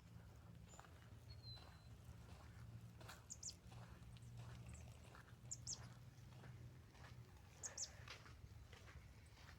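Faint bird chirps: short high calls in small groups, recurring a few times, over a low steady hum.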